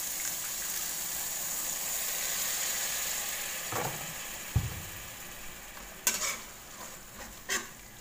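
Spice paste frying in oil in a wok with a steady sizzle. About four seconds in, a little water is poured in and the sizzle dies down. A stainless steel spatula then scrapes and clinks against the wok a few times.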